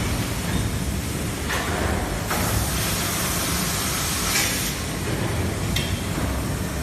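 Automatic bag conveying and sewing machine running: a steady low mechanical drone broken by several bursts of hiss from its compressed-air actuators, the longest lasting about two seconds.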